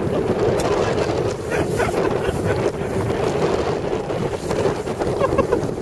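Wind rushing over the microphone and the steady scraping rumble of a snow tube sliding fast down a packed-snow run, with a few faint shouts in the distance.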